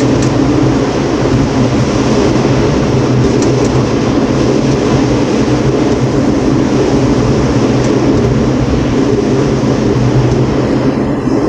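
St. Louis Gateway Arch tram capsule climbing the arch, a loud steady hum and rumble of the moving car heard from inside the capsule.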